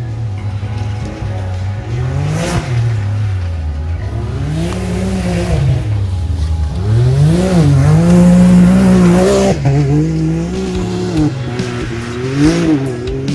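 Side-by-side UTV engine revving hard on a dirt track, its pitch climbing and dropping again and again with throttle and shifts, loudest about eight seconds in.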